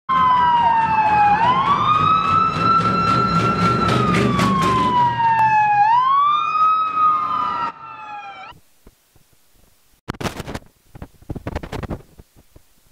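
Police car siren wailing, sliding slowly up and down in pitch, with vehicle engine and road noise underneath; it cuts off abruptly about two-thirds of the way through. A few short, fainter knocks and rustles follow near the end.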